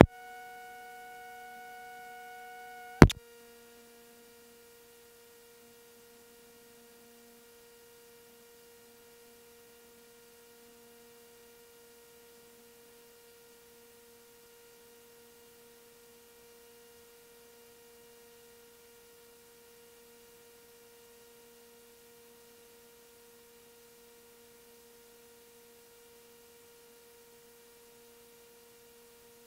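A steady electronic hum made of several held tones. About three seconds in, a sharp click cuts off its upper tones, and a fainter hum goes on unchanged after it.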